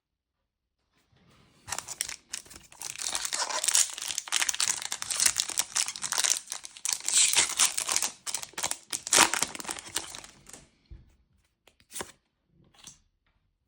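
Disney Lorcana booster pack wrapper being torn open and crinkled, a dense crackle lasting about nine seconds, followed by a few short taps near the end.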